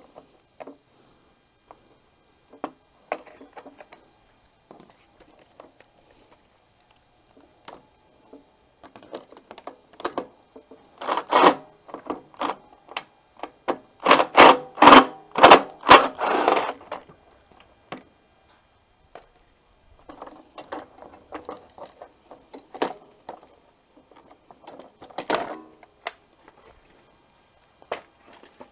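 Hand tools and a plastic engine cover clicking, knocking and clattering as the top cover is taken off a Briggs & Stratton 500E lawnmower engine. Scattered clicks are followed in the middle by a dense run of loud, rapid rattling strokes, about four a second, and then by more scattered knocks.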